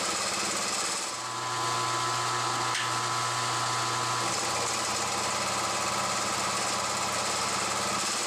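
Milling machine running, its spinning indexable face mill skimming one side flat on a short aluminium round held in the vise. A steady machine drone with a low hum that dips briefly about a second in.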